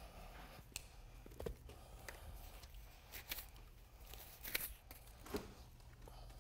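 Plastic buckets being carried, set down and picked up: a handful of faint, short knocks and rustles, the loudest a little after four and a half seconds, over a steady low hum.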